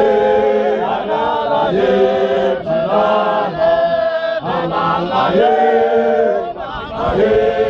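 Men of a Zion Christian Church Mokhukhu group chanting together unaccompanied, in loud, short repeated phrases with brief breaks between them.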